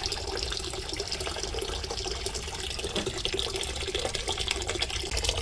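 Water running steadily out of a Burnham steam boiler's drain valve into a container, drained off to lower a slightly high water level.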